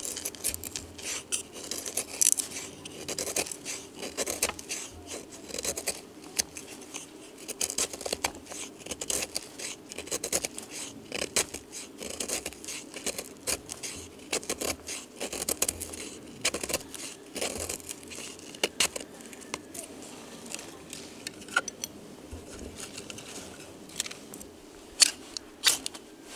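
Knife blade shaving thin curls off a piece of firewood to make feather sticks: a quick, irregular series of short scraping strokes through the wood. Near the end come a few sharper, louder scrapes as sparks are struck into the shavings.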